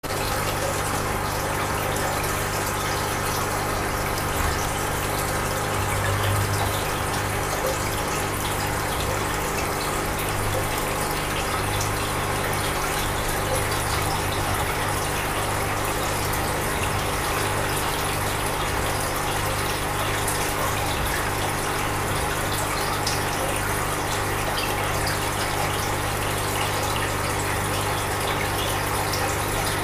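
Aquarium water circulation running: a steady rush of moving water with a low, even hum underneath.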